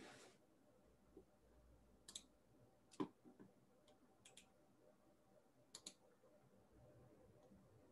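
Faint, scattered clicks at a computer as someone searches for a web page: about half a dozen in all, the loudest about three seconds in and a quick pair near six seconds, over a quiet room.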